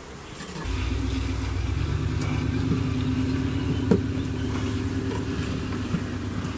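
A steady low motor hum starts suddenly about a second in and runs on. A single knock about four seconds in, as a wooden hive box is set down on the hive.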